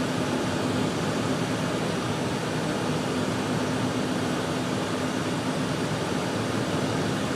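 Steady noise inside a moving four-wheel-drive vehicle's cabin, road and wind noise with a faint steady hum underneath.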